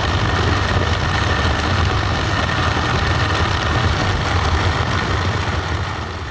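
Electric countertop blender motor running steadily under load, churning fish heads and innards into a thick paste, with a faint steady whine over the whir. It starts to die away at the very end.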